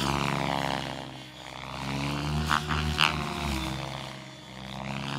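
Radio-controlled 3D helicopter running in flight, its motor and rotor whine swelling and fading twice as it manoeuvres.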